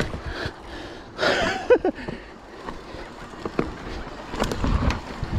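Nukeproof Mega full-suspension mountain bike descending a dirt forest singletrack: tyre noise on loose dirt with sharp clicks and rattles from the bike over roots and bumps. A brief vocal sound from the rider comes about a second in.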